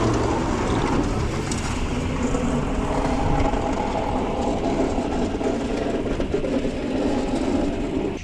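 A heavy vehicle engine running steadily under load, with a constant drone.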